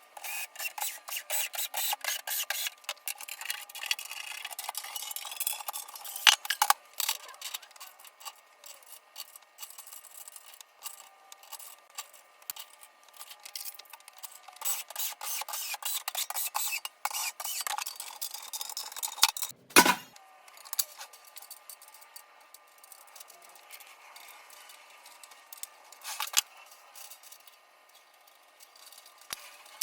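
Small metal drum hardware being handled: many light clinks, scrapes and rubbing, busier in the first half, with a sharper knock about twenty seconds in.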